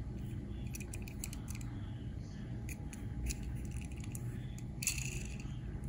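Faint handling noise of a small diecast toy car being turned over in the fingers: scattered light clicks and ticks, with a brief louder scratch about five seconds in, over a low steady background hum.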